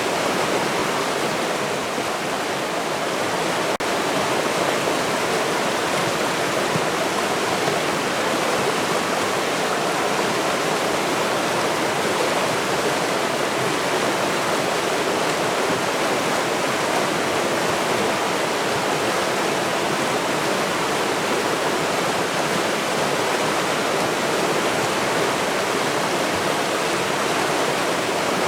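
River water rushing steadily, an even unbroken rush with no other sounds standing out.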